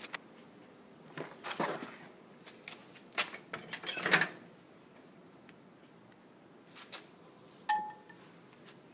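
Knocks and rustling as a microwave door and a bag of popped popcorn are handled, followed near the end by a single short electronic beep from the microwave's keypad.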